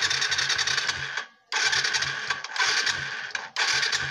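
Yamaha FZ motorcycle's electric starter cranking its single-cylinder engine in three pushes of a second or two, the engine turning over with a rhythmic churn but never catching. The bike won't start after water was drained from its fuel tank.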